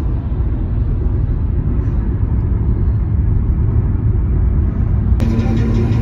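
Steady low rumble of road and engine noise inside a car's cabin at highway speed. About five seconds in, the sound changes abruptly and a steady tone comes in, the start of music.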